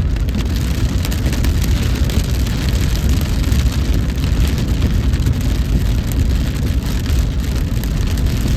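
Car driving in heavy rain: a steady low rumble of engine and road with an even hiss of rain and wet tyres.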